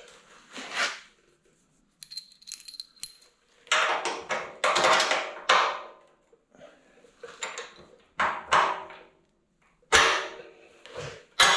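Irregular metallic clinks and clatter of steel bolts, washers and suspension hardware being handled and fitted into a lower control arm's mounts, with a brief high ringing from struck metal about two to three seconds in.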